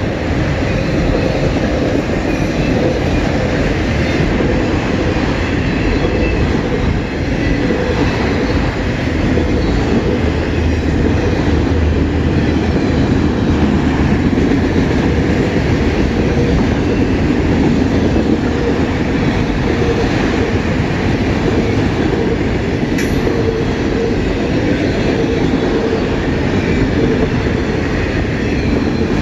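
CN freight train's empty cars rolling past on the rails: a loud, steady rumble and rattle of wheels and car bodies.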